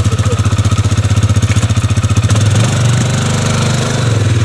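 Quad bike (ATV) engine running under load in wet mud, its wheels churning. About two seconds in, the engine note changes from an even pulsing chug to a steadier, slightly higher tone.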